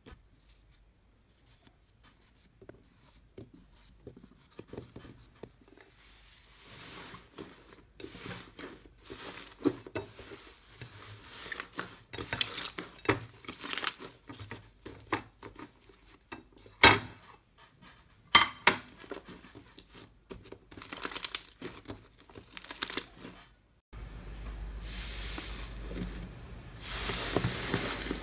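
Slime being handled close to the microphone: squeezed, stretched and pressed, with irregular wet crackles, clicks and pops. It is very faint for the first several seconds, and there are two sharp, loud snaps around the middle. Near the end a steady hiss joins the crackling.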